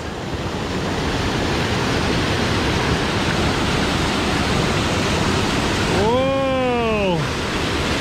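Small waterfall plunging into a rock pool, a steady, loud rush of falling water. About six seconds in, a person's drawn-out wordless exclamation of about a second rises and falls over it.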